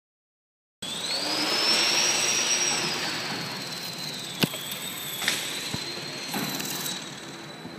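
Small electric motor and propeller of an indoor Depron RC model plane whining, its pitch rising just after the sound cuts in, holding high, then settling lower. Two sharp knocks come in the middle.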